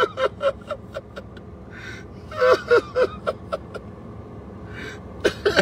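A man laughing in three short bouts of rapid chuckles, with breathy gasps between them.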